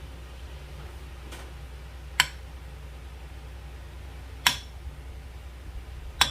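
Three sharp clinks of a utensil against a dish, about two seconds apart, each ringing briefly, over a steady low hum.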